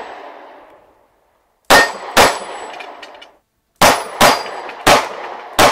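Glock pistol fired six times: a quick pair, then after a short pause four more shots. Each crack has a metallic ring after it.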